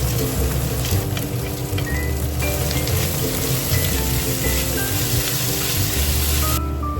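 Food sizzling in a hot frying pan, a steady crackling hiss that cuts off abruptly near the end, over light melodic background music.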